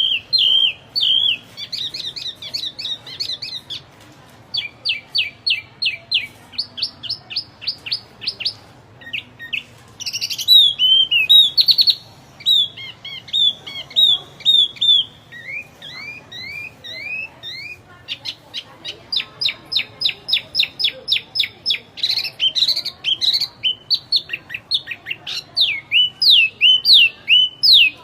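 Wambi songbird singing a busy, varied song: fast runs of repeated chirps, rattling trills and short upward- and downward-sweeping whistles, broken by brief pauses. This is the full song used as a tutor recording for teaching other cage birds.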